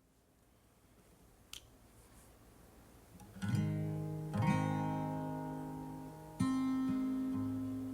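Acoustic guitar strumming chords, each one left to ring and fade: the instrumental intro of a worship song. It is faint with a single click for the first three seconds, and the chords come in about three and a half seconds in.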